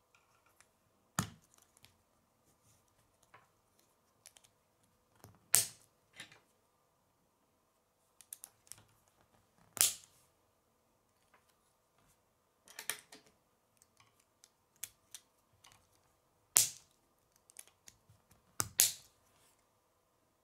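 K'nex plastic connectors being snapped onto rods and into each other by hand: several sharp plastic snaps a few seconds apart, with soft clicking and rattling of the pieces in between.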